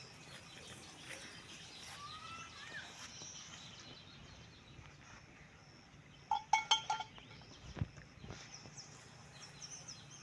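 Outdoor rural ambience with birds chirping and calling faintly throughout. About six and a half seconds in comes a louder, short pitched animal call broken into a few quick pulses, and a low thump follows about a second later.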